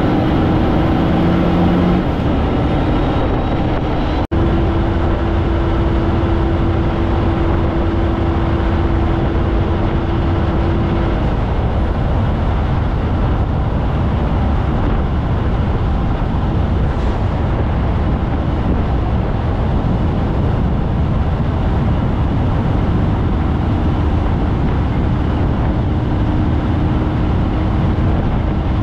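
Kenworth cab-over truck's Cummins diesel running steadily under load as it climbs a range with a double trailer set, heard from outside the cab window with heavy road and wind noise. A steady engine tone sits over the drone, fades out about eleven seconds in and comes back near the end; there is a brief sharp dropout about four seconds in.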